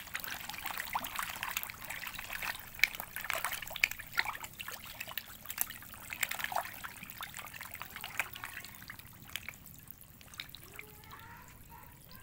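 Sangkuriang catfish thrashing at the surface to take feed pellets, a dense patter of small splashes that thins out over the last few seconds.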